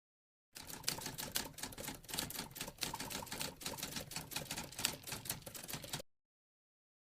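Rapid typing: a dense, irregular clatter of keystrokes, several a second, starting about half a second in and cutting off abruptly about a second before the end.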